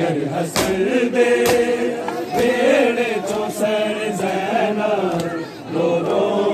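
A group chanting a Shia noha (mourning lament) together in chorus, with sharp strikes cutting through the chant at irregular intervals of about a second.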